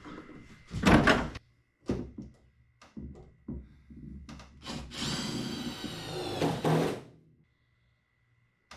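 Clunks and knocks of the hard plastic toolbox and its bracket being handled and fitted. Then a cordless drill runs for about two seconds.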